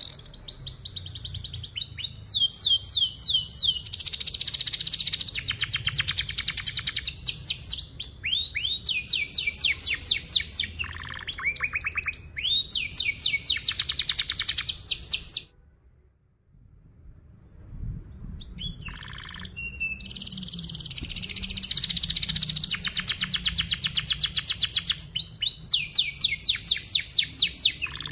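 Domestic canary singing long, rapid trills and rolls of tightly repeated high notes, with some sweeping phrases between them. The song breaks off for about two seconds midway, then starts again.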